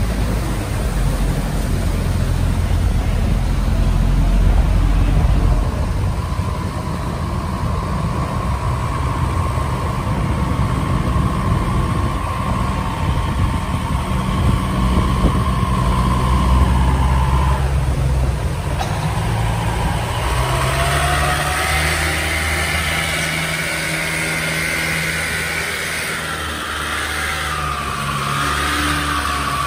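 Diesel boat engines running steadily as cargo boats pass close by, with a steady whine in the middle. In the last third a wooden boat's long-shaft stern engine (long-tail type) comes close, its pitch wavering up and down.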